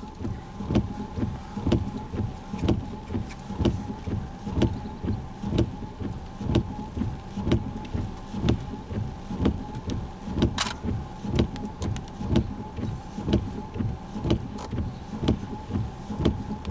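Inside a stopped storm-chase vehicle: a steady whine under a regular ticking or knocking beat about once a second, with fainter ticks between the main ones.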